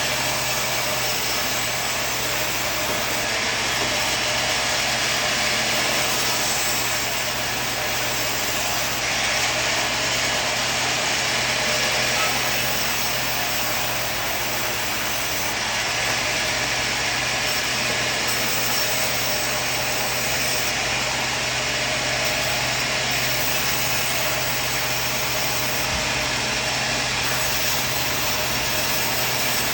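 Sawmill running and sawing through wood: a steady mechanical noise with a low hum underneath, swelling slightly now and then.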